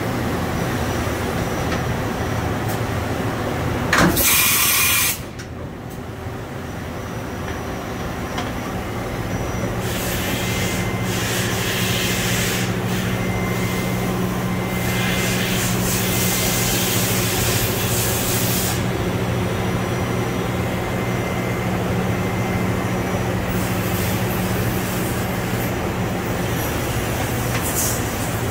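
Matsuura MC-510VG CNC vertical machining center running, with a steady machine hum and a low drone that swells through the middle. Several bursts of air-like hissing cut in, the loudest and sharpest about four seconds in.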